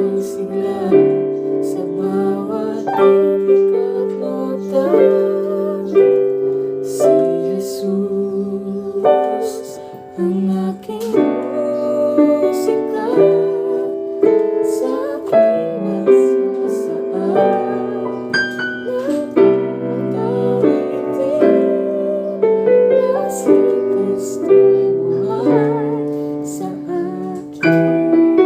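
Casio Privia PX-130 digital piano playing a continuous piece, with held chords under a changing upper line.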